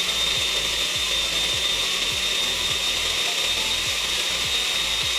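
Countertop blender motor running steadily at speed, puréeing serrano chiles with lime juice, a high steady whine over the rush of the blades churning the liquid.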